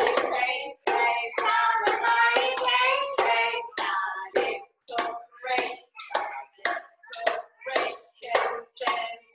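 Women singing a children's song, heard over a video call; from about four seconds in the singing falls into short, even syllables about two a second.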